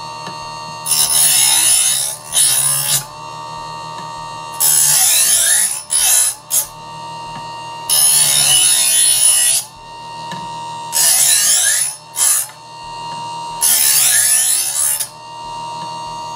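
Electric knife sharpener's small motor running with a steady whine while a steel knife blade is drawn across its spinning diamond wheel again and again. Each pass is a loud grinding rasp of about a second, about six in all with a few brief touches between, and the motor's whine sags slightly under the load of each pass.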